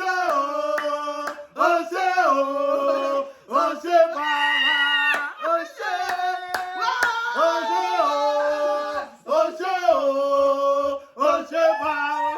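A voice singing a tune in long, held notes, with a few sharp hand claps in between.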